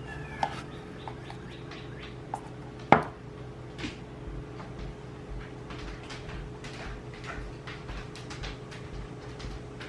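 Scattered clinks and knocks of kitchen utensils and dishes while ingredients are measured out, with one sharp knock about three seconds in. A steady hum runs underneath.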